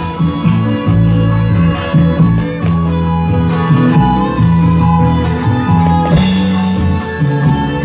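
Dangdut band playing an instrumental passage: sustained bass and melody lines over a fast, steady beat, with no singing.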